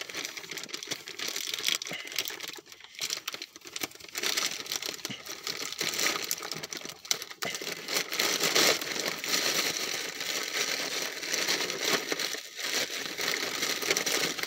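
Plastic mailer bag crinkling and rustling without a break, with many small crackles, as it is handled and pulled open.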